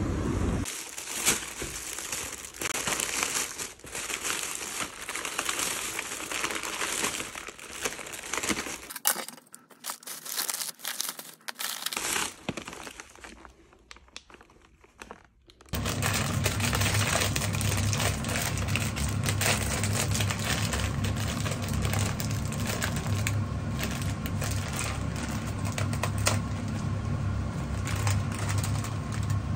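Thin plastic shopping bag and snack packets rustling and crinkling as they are handled, in dense stretches with a quieter gap. About halfway through a steady low hum starts and holds, with lighter clicks and rustles over it.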